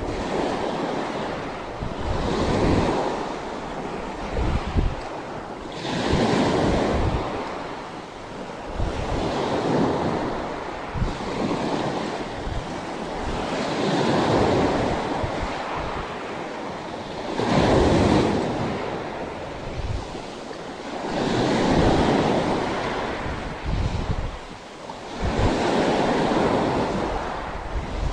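Small waves breaking and washing up a pebble beach, a swelling surge about every four seconds, with wind buffeting the microphone in low rumbles.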